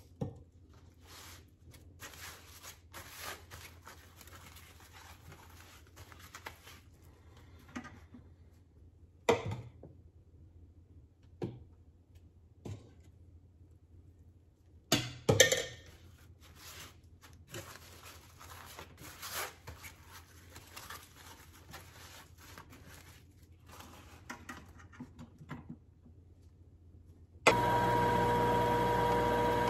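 A spoon and a steel measuring cup scrape and knock against a bowl while fruit mash is scooped out and dropped onto cloths, with sharper clinks about 9 and 15 seconds in. Near the end a steady electric motor hum starts suddenly: the juicer running.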